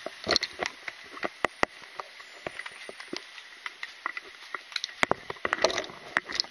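Irregular sharp clicks and light knocks, several a second, from gear carried while walking on a paved sidewalk: the rod, rifle and flag rattling against the body-worn camera.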